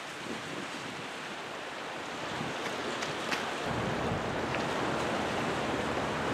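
Steady wash of wind and harbour water, slowly growing louder, with a low rumble joining in a little past halfway.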